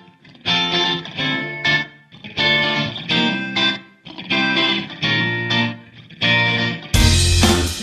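Intro music on plucked guitar, picked phrases with a slight effect on the tone; a fuller band with drums comes in about seven seconds in.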